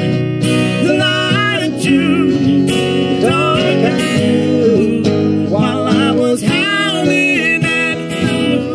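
Live folk duo: two acoustic guitars strummed under a male voice singing a melody with wavering, sliding notes.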